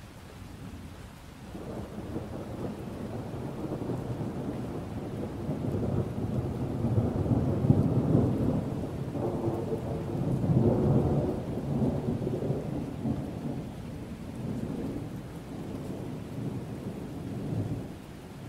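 A long rolling thunder rumble over steady rain. The rumble swells about a second and a half in, peaks around the middle, and dies away near the end.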